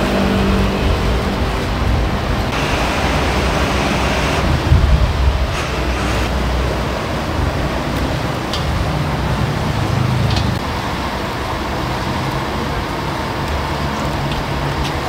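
Steady roar of a busy street-food stall beside road traffic, with a low hum running under it and a couple of light clicks in the second half.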